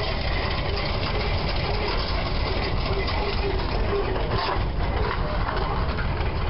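Vintage tractor engines running steadily, a continuous low rumble.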